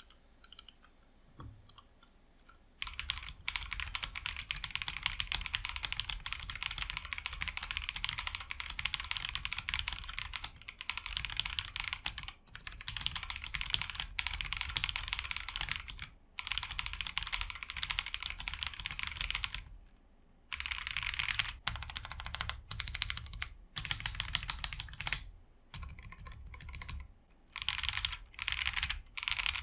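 Typing on a Fantech Maxfit70 mechanical keyboard in its stock gasket-mount setup: flex-cut polycarbonate plate on poron strips, plate foam fitted. A fast, dense run of keystrokes starts about three seconds in and breaks off briefly several times.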